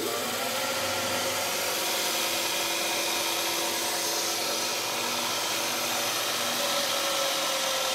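Rockwell vertical milling machine running steadily, its motor driving the spindle through a Fenner link belt on stepped pulleys. A smooth, even sound with a few faint steady tones: the link belt, fitted in place of a continuous V-belt, runs the mill smoothly.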